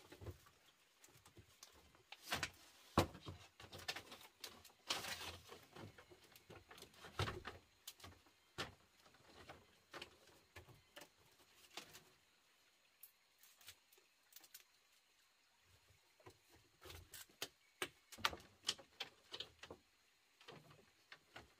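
Hand-work noises: irregular light knocks, clicks and rustles, sparse for a few seconds after the middle and busier again near the end.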